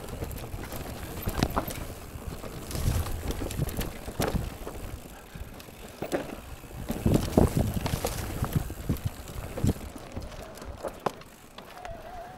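Mountain bike ridden over rough trail: tyres rumbling, with irregular knocks and rattles from the bike as it hits bumps, the loudest cluster about seven seconds in.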